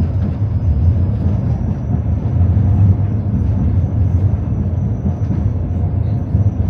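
Tram car running on its rails, heard from inside: a steady low rumble of wheels and running gear with a thin high whine over it.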